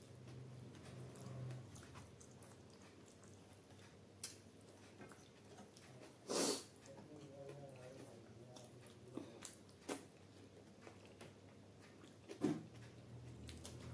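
Close-up hand-eating sounds: quiet chewing and wet mouth noises as fingers mop food from a steel plate. A few sharp clicks and one louder, longer noise about six seconds in.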